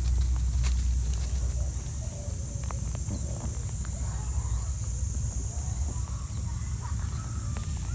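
European rabbit chewing greens, with a few crisp crunching clicks in the first second over a low rumble that fades about a second and a half in; after that, quieter outdoor ambience with only faint scattered clicks and a steady high hiss.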